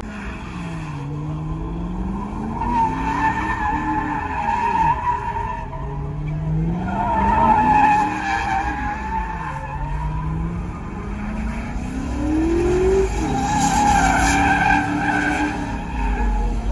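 A car spinning donuts: the engine revs up and falls back in three long swells while the rear tyres squeal continuously, their screech wavering in pitch as the wheels spin against the pavement.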